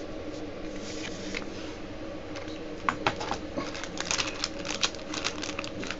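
Trading cards being handled: light clicks and taps of card on card and plastic, coming thicker from about three seconds in, over a low steady hum.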